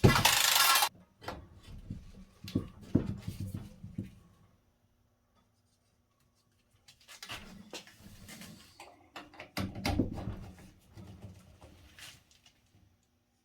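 Scattered knocks and clatter of copper pipe and fittings being handled and fitted, with a short loud hiss at the very start and a pause of a few seconds in the middle.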